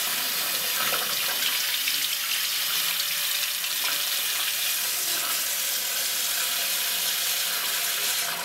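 Water running steadily from a bathroom tap into a porcelain sink, splashing over hands being washed under the stream: an even hiss.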